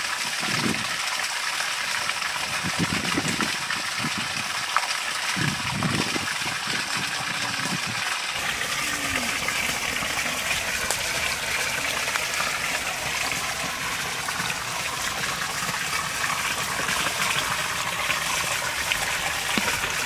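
Water pouring steadily from bamboo spouts and a small waterfall into shallow ponds, with a few low sloshes in the first several seconds.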